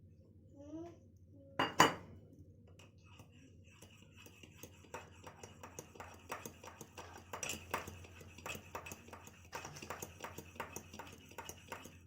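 A metal spoon stirring and clinking against a cup, mixing whipped instant coffee into hot milk: one loud clink about two seconds in, then a run of quick clinks, two to three a second, from about three seconds on.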